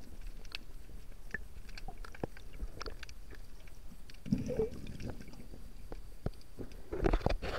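Underwater sound picked up by a submerged camera: scattered faint clicks and crackles, a short gurgle of bubbles about halfway, and louder sloshing and splashing near the end as the camera reaches the surface.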